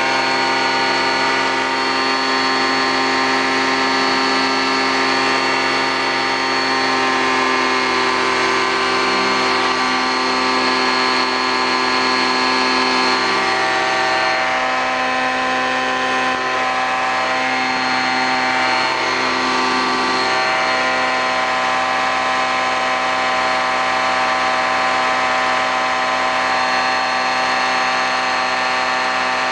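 Titan Tornado II ultralight's engine and propeller running at steady power in flight: a constant drone with many steady tones that holds level throughout.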